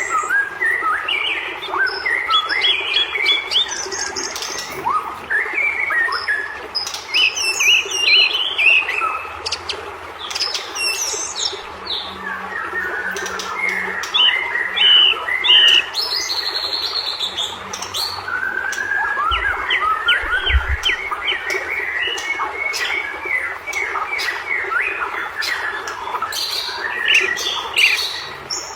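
White-rumped shama singing fast and loud, an unbroken run of varied chirps, whistled sweeps and harsh squawking notes: the aggressive, fired-up 'gacor' song used to provoke other shamas.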